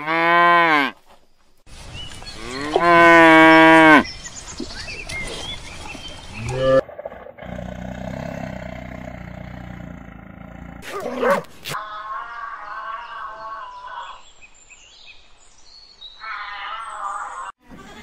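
Dairy cows mooing: two long moos in the first four seconds, the second the loudest. Later a tiger growls with a low, rough rumble.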